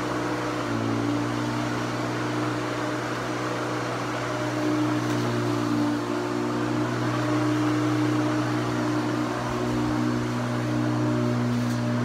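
Corded electric lawn mower running steadily as it is pushed across the grass, giving a constant motor hum with blade whir.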